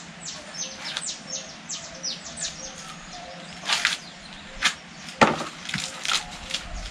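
Fresh corn husks being torn off the ears by hand, giving a few sharp ripping snaps, the loudest about five seconds in. A bird calls a quick series of short falling notes through the first three seconds.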